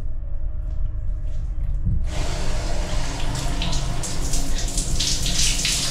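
Overhead rain showerhead turned on about two seconds in: water sprays down steadily and splashes on a person's head and body, over a low steady hum.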